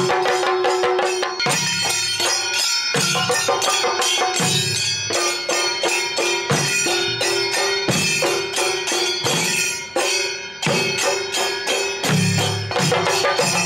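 Kerala Shingari Melam ensemble playing: a fast, even rhythm of chenda drum strokes and elathalam cymbals, with deeper bass beats every second or so and a held pitched note sounding over the drumming.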